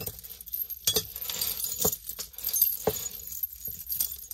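Tangled metal chain necklaces and pendants jangling and clinking as they are pulled apart by hand, with a few sharper clinks about a second apart.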